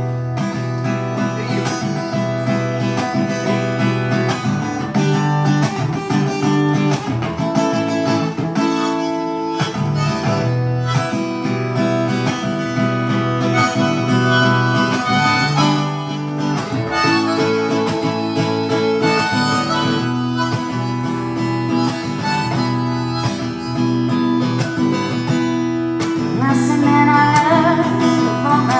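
Live acoustic guitar strumming under a harmonica playing a melody line, an instrumental passage of the song with no singing.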